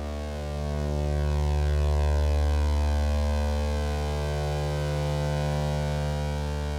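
A steady low synthesizer drone from Arturia Modular V3, one sustained pitched tone rich in overtones. It swells slightly in loudness about a second in, then eases back.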